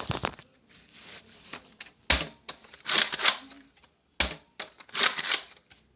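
Nerf Roughcut 2x4 blaster being worked by hand: sharp plastic clacks about two seconds apart, each followed by a second or so of rattling, sliding plastic noise.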